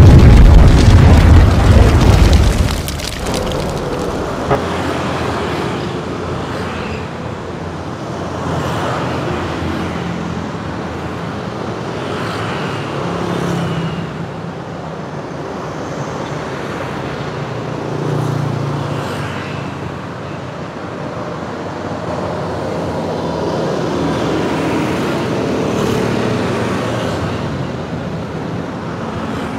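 Loud background music cuts off about three seconds in. After that comes steady roadside traffic noise: cars and motorbikes pass on the road one after another, swelling and fading every few seconds.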